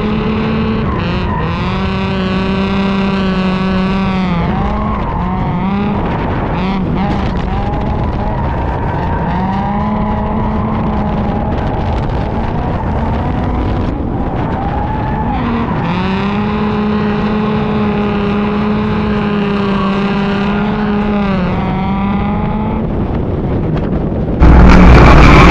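Drift cars' engines revving high on track, held at steady revs for several seconds at a time with brief dips and climbs, over tyre noise. The sound jumps suddenly louder near the end.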